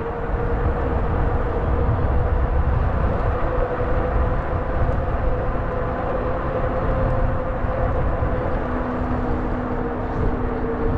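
A fat-tire e-bike riding a trail: wind rushing over the microphone and a low rolling rumble, with the steady whine of the bike's electric motor running under it. A second, lower whine joins a little over two-thirds of the way in.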